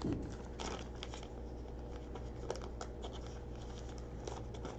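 Basketball trading cards being handled and slid through by hand: scattered soft rustles and light clicks, over a steady low hum.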